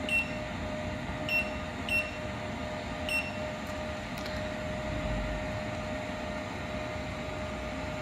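Touchscreen control panel of an automatic coaxial cable stripping machine giving four short beeps as its on-screen buttons are pressed, the last three a little over a second apart, over a steady hum.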